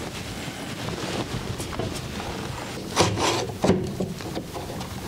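One-handed bar clamp being worked tight on a wooden stair tread, with low handling and rubbing noise, then a cluster of sharp clicks and knocks about three seconds in as the clamp bites and the tread is pulled down onto the stair.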